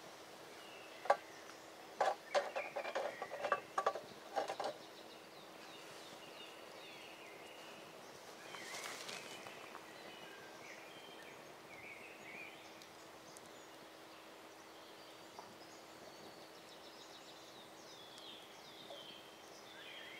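A quick run of sharp knocks or taps between about one and five seconds in, then a brief rustle, with birds chirping in the background.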